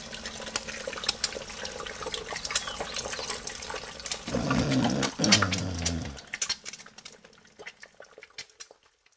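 Kitchen tap running into a sink, with dishes and utensils clinking and knocking. A low hum comes in about four seconds in and lasts a couple of seconds, and the sound fades out near the end.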